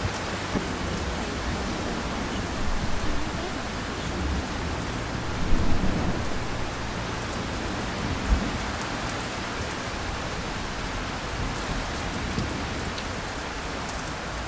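Heavy typhoon rain pouring steadily, with a few low rumbles swelling over it. The strongest comes about six seconds in, followed by a short low thump about two seconds later.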